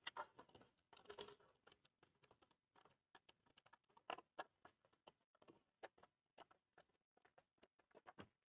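Near silence with faint, scattered light clicks and taps, as a small plastic RC model jeep is handled.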